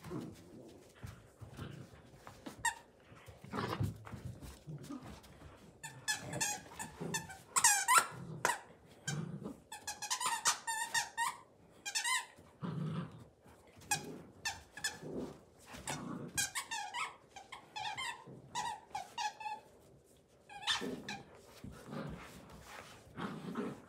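Golden retriever puppy and adult golden retriever playing tug over a plush toy: many short high-pitched squeaks, thickest in the middle, with low play growls.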